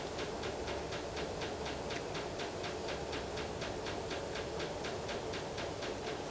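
Steady rapid mechanical ticking, about five ticks a second, over a low steady hum, from a machine running in the background.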